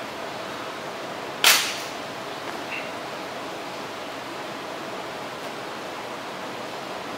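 A single sharp metal clank about one and a half seconds in, from a 135 lb barbell knocking in the bench rack's hooks as the lifter takes his grip, over a steady hiss.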